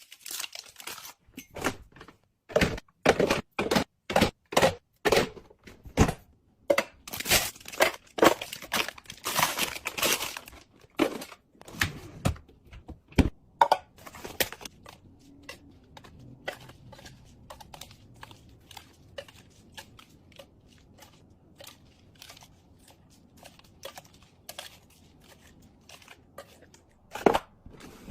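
Fridge restocking: food items and packaging being handled, set down and knocked together, with sharp taps and crinkling of wrappers. Busy for the first half, then sparse soft ticks, and one loud knock near the end.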